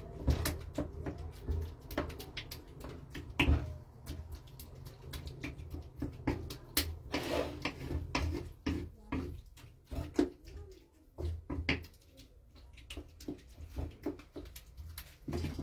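A spoon clicking and scraping against a terracotta bowl as a crumbly mixture is stirred, in quick irregular knocks.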